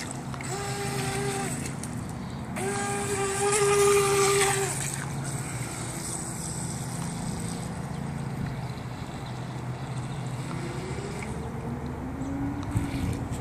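Traxxas Vector 28 RC boat's brushless electric motor whining in throttle bursts: a short whine, then a longer, louder one a couple of seconds in. A quieter stretch with water and wind hiss follows, and near the end a whine rises in pitch as the boat speeds up again.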